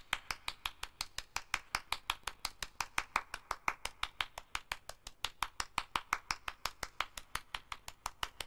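Hand clapping, quick and even at about eight claps a second: stage applause for the play's final tableau.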